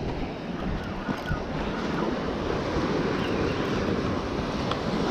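Ocean surf washing up on a beach, a steady rushing wash that swells slightly in the middle, with wind buffeting the microphone.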